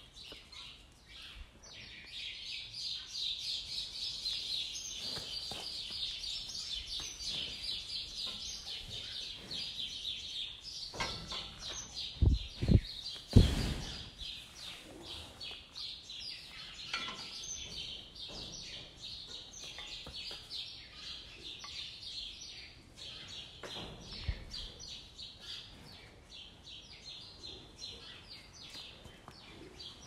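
Many small birds chirping in a dense, rapid chorus, most intense in the first half. A few loud thumps come in quick succession near the middle, with one more later on.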